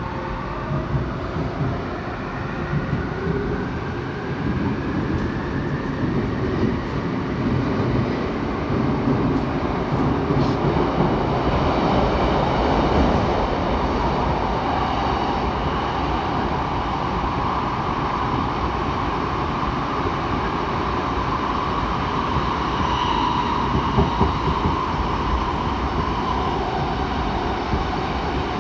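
Seoul Metro 7000 series subway train running, heard from aboard. Over the first few seconds the traction motors give several whining tones that rise in pitch as the train accelerates. The rest is steady running noise of the wheels on the rails, with a hum near the middle of the range.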